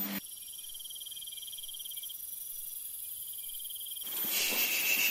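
Crickets trilling steadily at a high, even pitch. A second, slightly lower trill joins about four seconds in.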